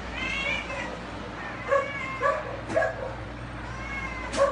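A dog whining and giving short yipping barks: a high whine near the start, then three quick barks about half a second apart, thin whining between, and another bark near the end.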